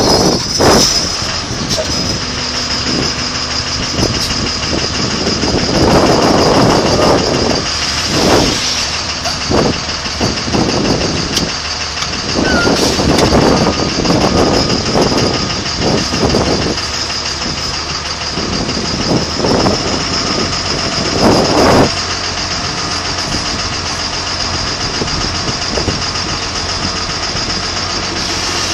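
A heavy vehicle's engine running steadily at idle, with a constant high whine over it and irregular louder bursts of noise every few seconds.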